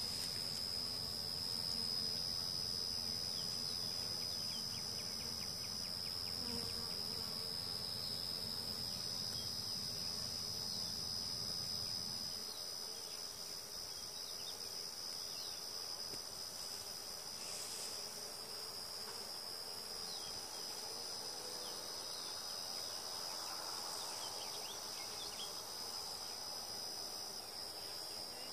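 Steady high-pitched drone of insects in the surrounding vegetation, with honeybees buzzing around an open hive.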